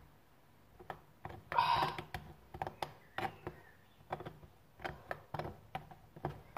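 A spoon clicking and tapping against the inside of a metal mug as raspberries and sugar are mashed in it: irregular light clicks, about two a second, with one longer scrape about one and a half seconds in.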